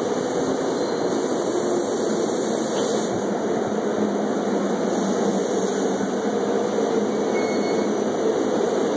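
SEPTA Silverliner electric multiple-unit train rolling along the platform close by, a steady rumble of wheels and running gear with no horn.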